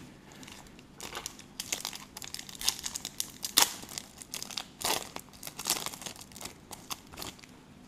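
Foil wrapper of a 2015 Select Soccer trading-card pack being torn open and crinkled by hand: a run of crackles and rips starting about a second in, loudest around the middle.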